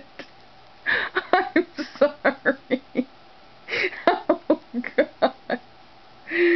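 A person's voice in two runs of quick, short syllables with a pause between them, ending in a drawn-out vowel sound.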